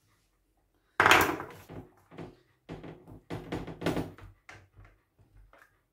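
A sharp knock about a second in, then a run of lighter knocks and clatters as sliced vegetables are moved about and set down on a metal baking tray by hand.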